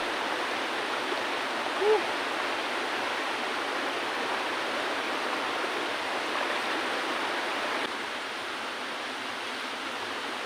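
Shallow river rushing steadily over rocks and stones, with a brief short sound about two seconds in. The rush drops slightly in level near the end.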